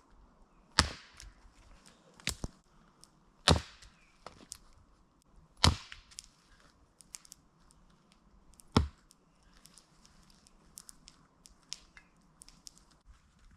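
Small Gränsfors Bruk axe chopping wood for a campfire: four sharp blows a couple of seconds apart, with a lighter double knock between the first two. Small clicks and taps of wood follow in the last few seconds.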